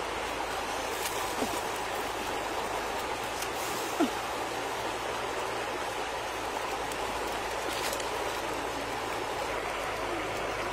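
Steady rushing noise of flowing stream water, with a few faint crackles from the wood fire.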